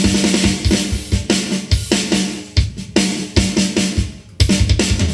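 Rough song mix playing back: a drum kit plays a fill of bass drum, snare and cymbal hits over a sustained electric guitar part, leading into a heavier section. The music stops for a moment about four seconds in, then comes back in.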